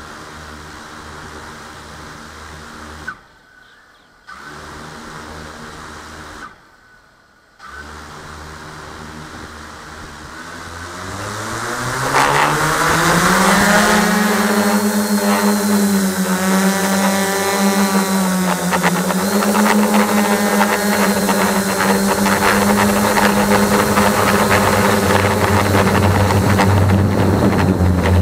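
Quadcopter drone's electric motors and propellers humming steadily at low speed, cutting out twice briefly, then spinning up with a rising whine as it lifts off about eleven seconds in. After that a loud steady propeller whine with a pitch that wavers as it climbs.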